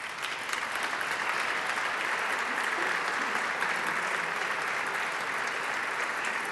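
Audience applause: many people clapping at once, steady and dense.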